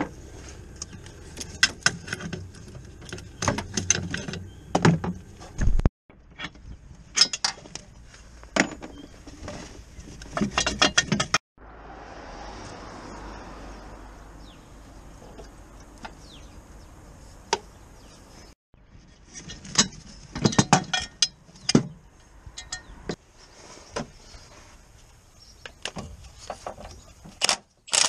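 Hand tools and metal parts clinking, tapping and scraping during work on a car's engine mount and gearbox: a run of short, sharp metallic clicks and knocks. In the middle comes a stretch of several seconds of steady, even noise without clicks.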